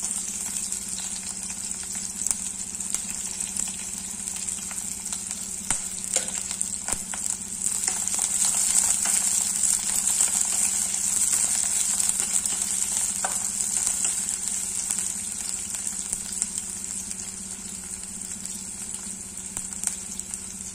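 Sliced onions sizzling in hot ghee and oil in a pressure pan, being sautéed with whole spices and stirred with a wooden spatula. A steady frying hiss that swells a little about eight to twelve seconds in, with a few light clicks from the spatula.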